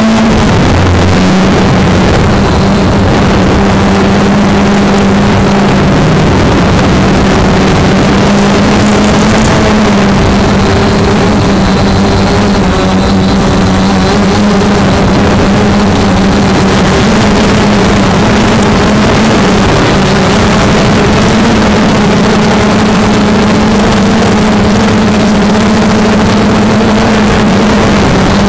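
Multirotor drone's motors and propellers running close to the on-board microphone: a loud, steady buzzing hum over a rush of air, its pitch shifting only slightly as the drone hovers and drifts.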